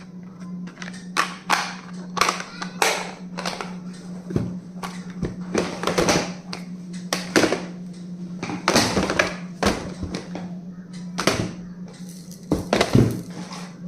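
Repeated taps, clicks and rustles of small stationery items and plastic packaging being handled, over a steady low hum.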